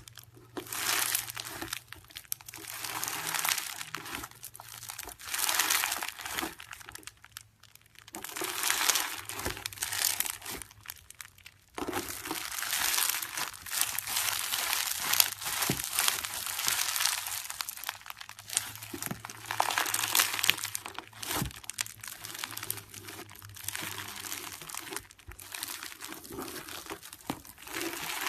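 Homemade slime squeezed and stretched by hand, crackling and crinkling in bursts of a second or two, almost without pause in the second half.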